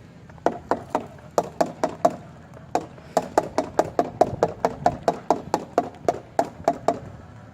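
Nerf Hyperfire flywheel blaster firing darts in rapid strings, about five shots a second, with a short break about two and a half seconds in, emptying its 25-round drum. A steady low hum from the spinning flywheel motors runs underneath.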